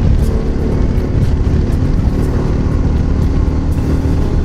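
Yamaha XT660Z Ténéré's single-cylinder engine running steadily at highway cruise, around 107 km/h, with heavy wind noise over it.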